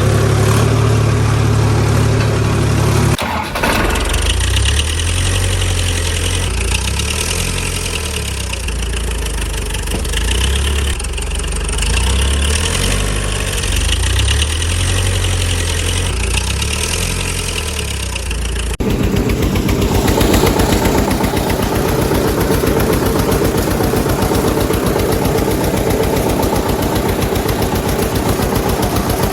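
Vehicle engine sounds running steadily, changing abruptly to a different engine about three seconds in and again about two-thirds of the way through; the last one is a fast, even putter like an idling engine.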